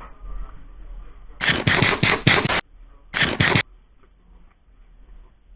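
Airsoft gun firing two bursts of rapid shots. The first burst, about a second and a half in, lasts just over a second; a shorter burst follows half a second later.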